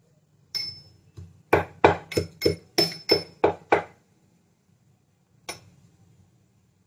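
Small steel mortar and pestle pounding whole cloves, black peppercorns and green cardamom. There is a single ringing metal clink, then a quick run of about nine strikes at roughly four a second, and one last strike after a pause.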